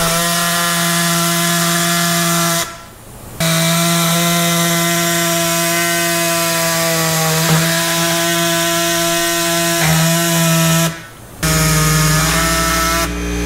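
Pneumatic reciprocating air saw with a coarse blade cutting through a plastic radiator fan shroud: a loud, steady buzz that stops briefly twice, about three seconds in and near the end, then starts again.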